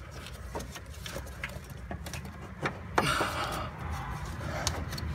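Scattered light clicks and knocks of a gloved hand and parts being handled around a car's clutch master cylinder in the engine bay, with a short breathy rustle about three seconds in, over a faint low steady hum.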